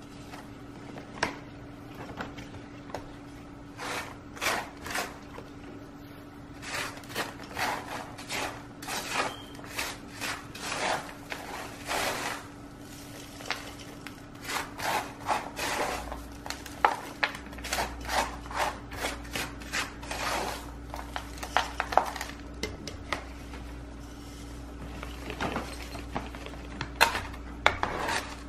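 Hands pushing and packing chunky bark orchid potting mix into a terracotta pot around the plant's roots: a long run of short, irregular scraping and rustling strokes.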